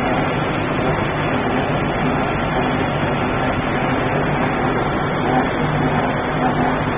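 Sawdust rotary drum dryer line running: a steady, even machinery drone of its fan, cyclone and drive motors, with a constant low hum underneath.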